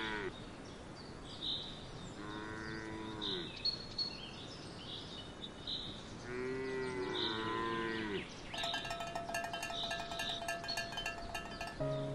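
A cow mooing in two long, drawn-out calls, with birds chirping in the background. About two-thirds of the way in, a light music tune with a quick ticking beat starts.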